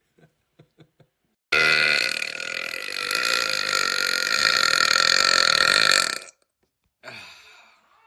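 A man's deliberate, long, loud burp held for about five seconds. It starts suddenly after a few faint short sounds and cuts off, followed near the end by a shorter, fainter one that tails away.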